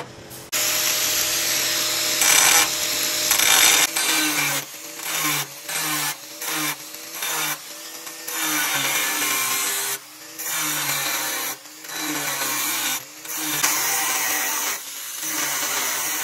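Angle grinder with a thin cut-off disc cutting steel plate. It starts about half a second in and runs steadily for a few seconds, then cuts in many short passes, stopping and restarting every second or so.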